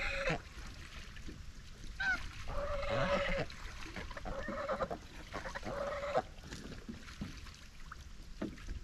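White Chinese geese honking: a short call right at the start, then strings of calls about two seconds in and again about four and a half seconds in, with the flock falling quiet over the last few seconds.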